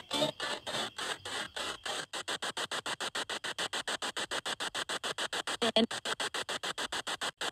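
Spirit box sweeping through radio frequencies: hissing static chopped evenly about ten times a second, with a brief snatch of a voice-like tone about six seconds in.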